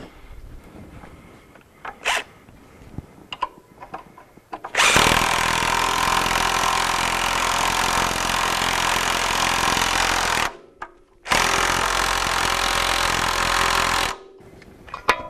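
A power tool runs a nut down onto the bolt through the strut at the lower ball joint, in two steady runs of about five and three seconds with a short break between. Before that come a few light metallic clicks of the bolt and wrench being fitted.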